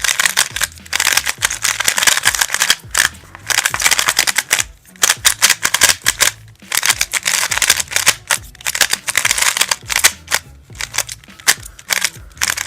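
Rubik's RSC 3x3 speed cube being turned rapidly: its plastic layers give quick runs of clicking, broken by short pauses, over background music.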